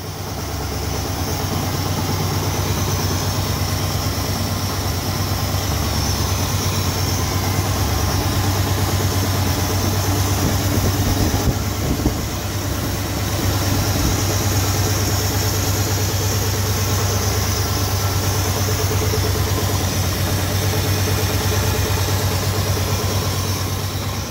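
Chrysler 440 big-block V8 idling steadily, with a soft knock-like noise in its running that in person sounds more like a suction sound: a sign of something wrong inside the engine.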